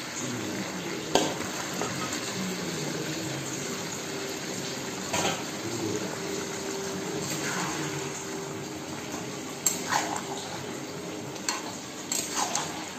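Chilli-chicken gravy bubbling and sizzling in a kadai while the fried chicken pieces are stirred in, a spatula knocking and scraping against the pan several times.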